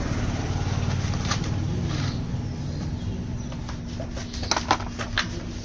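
Yamaha motorcycle engine running at idle with a fast, even low firing rhythm, after its carburettor has been rebuilt. A few sharp clicks come near the end.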